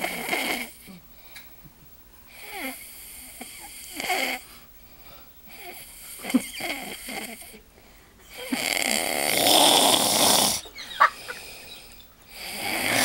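A person snoring, one rattling snore about every three seconds; the snore about two-thirds of the way in is the longest and loudest.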